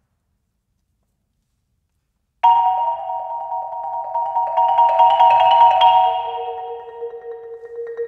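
Yamaha concert marimba played with four mallets: silent at first, then about two and a half seconds in it starts with a loud struck attack and goes into fast, rapidly repeated mallet strokes on ringing bars. A lower note comes in and rings under the strokes near the end.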